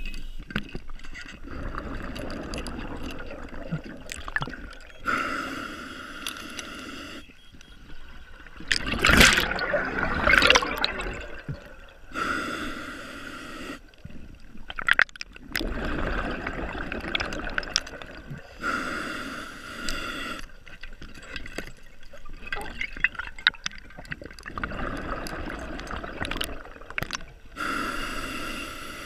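Scuba diver breathing through a regulator underwater: a hissing inhale every six to seven seconds, each followed by gurgling exhaust bubbles, the loudest bubbling about nine to ten seconds in.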